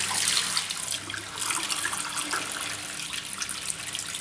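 Water from an AEG 50750 dishwasher's drain hose gushing and splashing into a sink during the drain cycle, with a low steady hum underneath.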